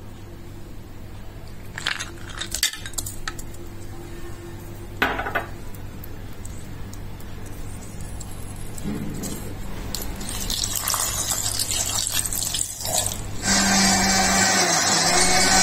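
Ice cubes and ingredients clinking and knocking into a stainless steel mixer jar, with a few sharp clinks. Near the end a louder steady noise sets in.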